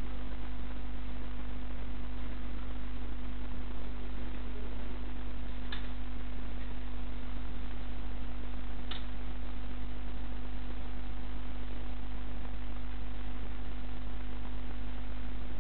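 Steady low electrical mains hum with hiss from the recording, and two faint sharp ticks about three seconds apart.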